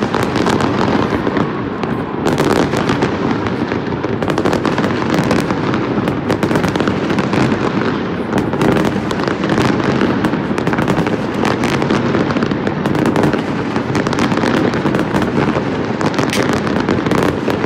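Aerial fireworks going off in a continuous barrage: many shells bursting at once, with dense crackling over a constant rumble and no gaps.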